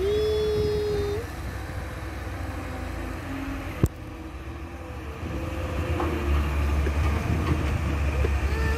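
Steady low rumble of dump truck and excavator engines working at the pit, growing louder about six seconds in as the loaded dump truck pulls away. A long high-pitched cry is heard right at the start, and there is a single sharp click about four seconds in.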